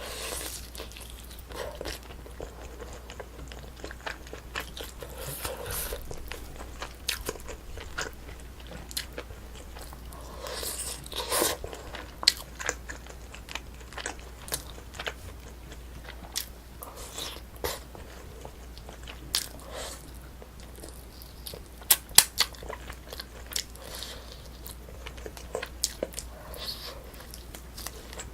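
Close-miked chewing and biting of braised spicy chicken, with wet mouth sounds and irregular sharp clicks, a few of them louder.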